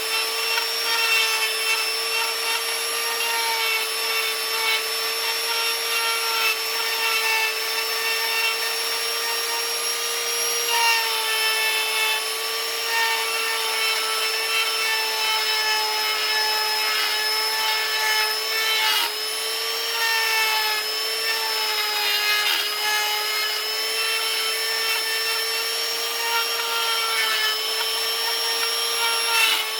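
Small electric power carving tool running continuously as it grinds into wood: a steady whine with rasping noise, the pitch dipping slightly from time to time as the tool bites.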